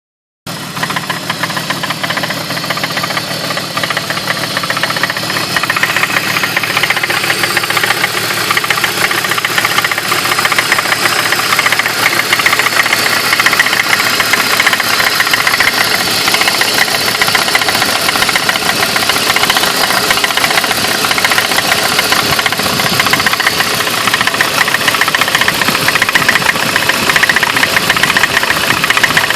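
BMW E46 inline-six engine idling with a steady, rapid knocking from the front of the engine, which the owner suspects is a failing, slightly leaking water pump; the idle is also rough.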